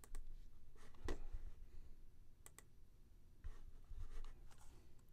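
A few faint, scattered computer mouse clicks, with a quick double click about halfway through.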